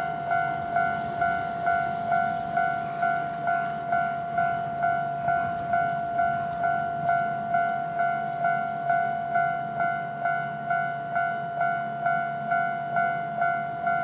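Japanese railway level crossing's electronic warning bell ringing steadily, about two strikes a second, with its normal (standard) tone, signalling that a train is approaching.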